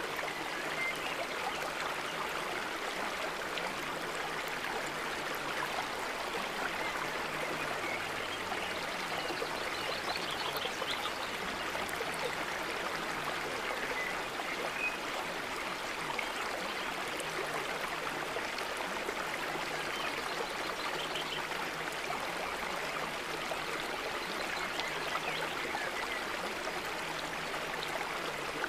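Steady running stream: an even, unbroken rush of flowing water.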